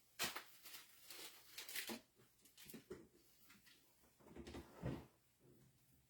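Faint, irregular handling noises: a few short scuffs and rustles in the first two seconds, then another cluster of them near the end.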